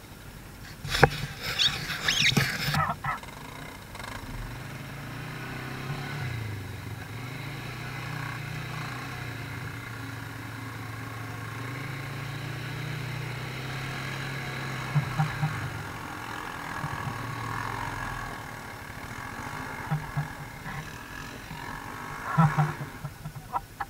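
Quad bike (ATV) engine running at low speed, its low drone wavering up and down in pitch with the throttle. A few loud rough bursts come in the first three seconds, and a string of short sharp knocks near the end.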